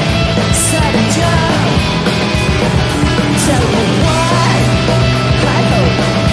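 Rock band playing live and loud: distorted electric guitars over a driving drum beat.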